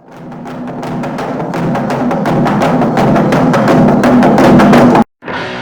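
Naga log drum beaten in a rapid, continuous roll of wooden strikes with a low ringing tone, fading in and growing louder before cutting off abruptly about five seconds in. Near the end a different, tonal piece of music begins.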